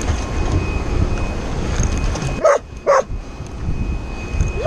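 A dog whining twice in short, high yips about halfway in, over a steady low rumble.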